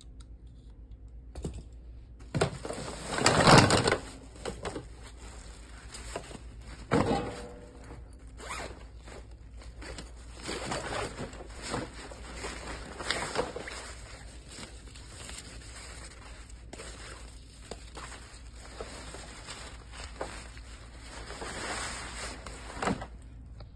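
Zipper on a nylon carrying bag being pulled, loudest in a long rasp a few seconds in, followed by fabric rustling and scraping as the bag and the plastic poles inside are handled.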